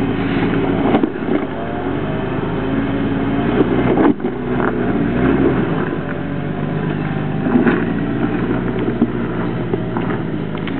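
Jeep Wrangler engine revving up and down under load as it climbs a steep, loose rock hill, its tyres scrabbling over stones and dirt, with a sharp knock about four seconds in.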